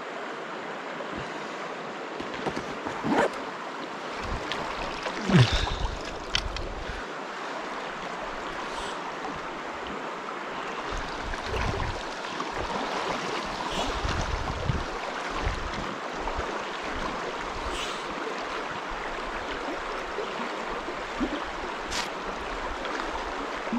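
River current running steadily over a stony riverbed. Now and then there is low wind buffeting on the microphone, and a few brief knocks, the loudest about five seconds in.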